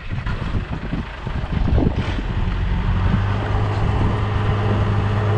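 A truck engine running steadily. Its low, even hum comes in about two and a half seconds in and grows louder.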